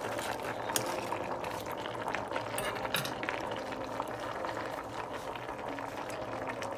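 Sinigang broth simmering in a stainless steel pot under a layer of napa cabbage leaves, a steady bubbling with scattered light clicks.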